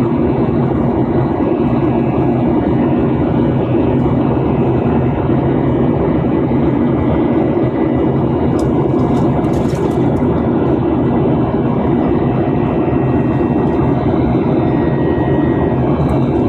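Steady, loud engine and airflow noise of a jet airliner heard from inside the passenger cabin during the climb after takeoff.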